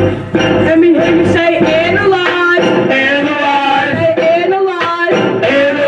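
A voice singing a melody in long, gliding held notes over backing music.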